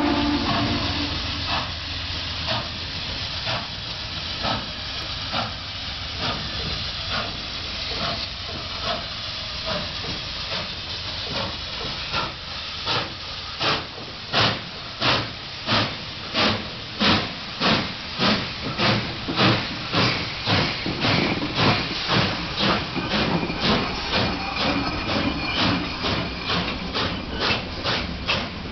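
Southern Pacific 4449, a GS-4 4-8-4 steam locomotive, pulling away: the steady chuff of its exhaust over the hiss of steam blowing from its cylinders. The chuffs come evenly, a little under two a second, and grow much louder about halfway through as the engine draws close.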